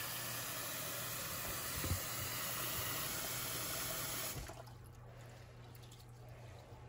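Kitchen faucet running a stream of water into a plastic bowl of rice, shut off abruptly a little after four seconds in. After that comes a quiet swishing as a hand rinses the rice in the water.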